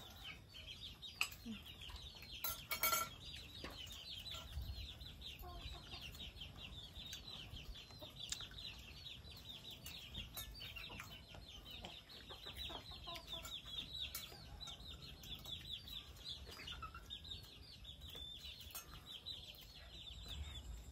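Chickens cheeping: a rapid, continuous run of short, high calls that thins out near the end, with a few sharp clacks, the loudest about three seconds in.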